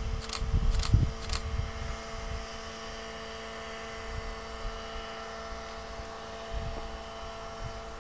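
Distant Bombardier Traxx BR285 diesel-electric locomotive approaching with a tank-wagon freight train: a steady engine and cooling-fan hum with several fixed tones. Wind rumbles on the microphone and three brief hisses come in the first second and a half.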